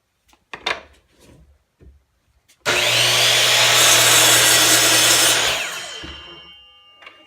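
Kobalt 7 1/4 in. sliding miter saw, a few light clicks as it is handled, then its motor starting with a sudden loud rush and cutting a 30-degree angle cut through wood for about three seconds, then the blade winding down and fading out.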